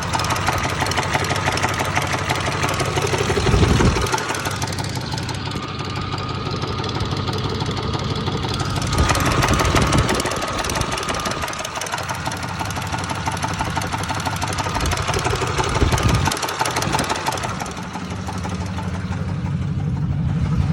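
Engine sound with a rapid, even knocking rhythm, swelling louder three times a few seconds apart.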